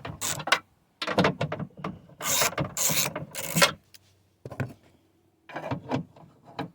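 Socket ratchet on an extension working 10mm bolts loose from the window regulator bracket, clicking and rasping in several short spurts with brief pauses between them.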